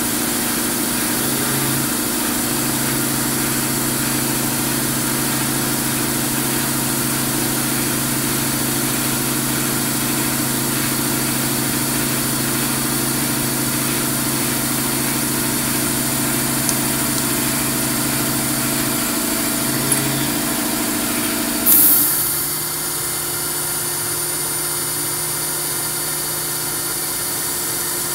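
Fadal CNC machining center milling metal expansion links with an end mill: a steady machine hum and whine from the spindle and the cut. About three quarters of the way through there is a brief loud hiss, and after it the machine's tone changes and some of the lower hum drops away.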